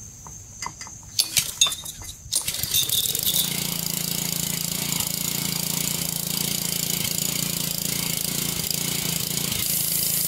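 Some knocks and clicks, then the pressure washer's Honda GC160 engine, already warm, is pull-started and catches about two seconds in, running steadily from then on.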